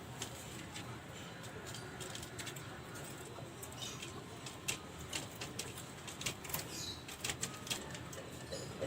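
Kelantan derkuku (spotted dove) cooing, over a steady low hum, with scattered sharp clicks throughout.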